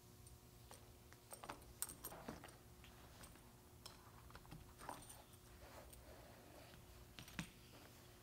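Faint handling of a leather apron's cross-back strap harness: soft leather rustles and small clicks of its metal buckle hardware, scattered through, the loudest about two seconds in and again near the end, over a low steady hum.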